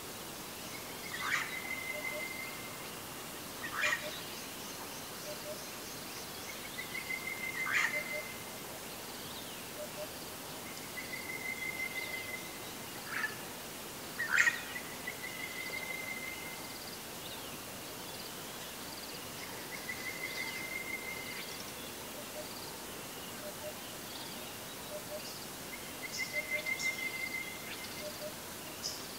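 A bird calling over a steady outdoor hiss. Every few seconds it gives a trilled note of about a second, several times preceded or crossed by a sharp, quick downward chirp.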